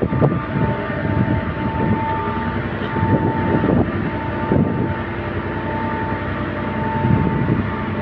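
Bitzer screw compressor running steadily: a constant machine drone with a steady whine on top.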